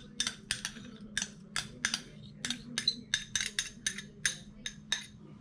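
Light, irregular clicks and clinks of a utensil against a dish, about three a second, as food is portioned into a bowl.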